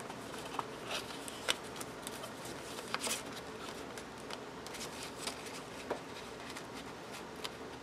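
Quiet handling of a ring-bound planner: paper pages and a clear plastic cover rustling as they are turned, with a few soft clicks and taps scattered through.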